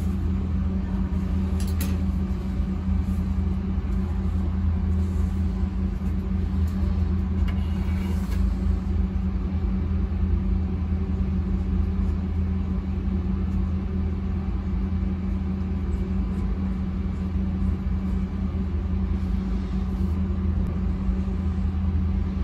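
Vacuum pump of a probe station running with a steady low drone, holding the probe positioners down by suction. A few faint clicks come from handling the probe tip.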